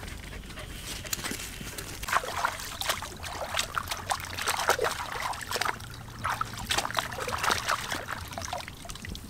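Water sloshing and splashing in quick, irregular bursts starting about two seconds in.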